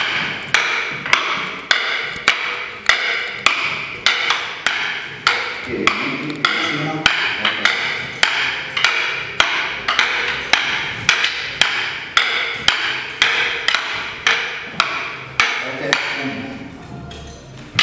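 Wooden fighting sticks clacking together in a steady two-person double-stick drill. The sharp strikes come nearly twice a second at an even rhythm and stop shortly before the end.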